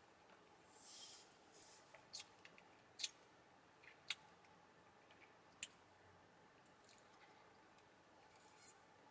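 Near silence broken by about five faint, sharp single clicks and two short rustles, one about a second in and one near the end.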